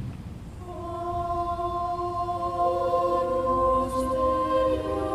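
Church choir singing slow, held chords in several parts. It comes in about a second in and grows louder.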